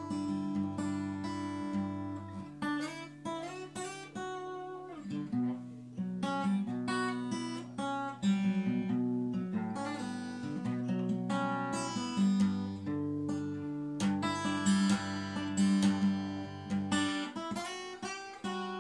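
Acoustic guitar strumming chords, the instrumental intro of a song.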